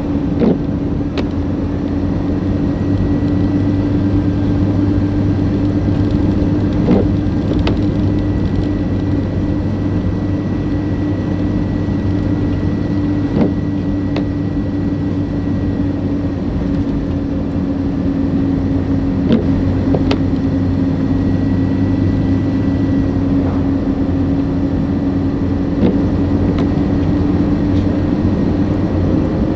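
Steady hum and road noise of a car driving, with a few short knocks now and then.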